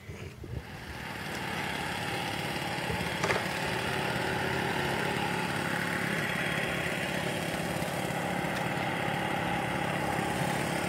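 Engine of a radio-controlled Aquastar model floatplane running steadily at speed as the plane skims across the water on its floats. It grows louder over the first couple of seconds, then holds level.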